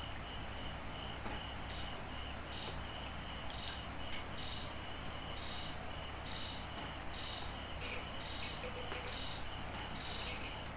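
High-pitched insect chirping in a steady series of short pulses over a faint steady hum, with a few faint splashes or taps as hands rinse small fish in a plastic tub of water.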